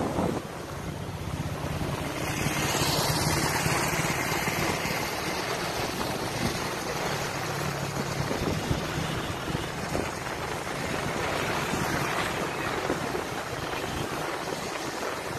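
Wind noise on the microphone of a moving motorcycle, with the motorcycle's engine running steadily underneath at a cruise.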